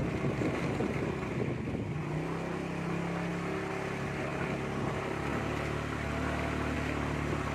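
Motorbike engine running under load while climbing a steep uphill road, its pitch rising slightly about two seconds in and then holding steady.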